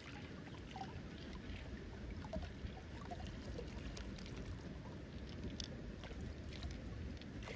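Steady low rumble of running ditch water, with water trickling off a mussel shell and faint scattered small clicks.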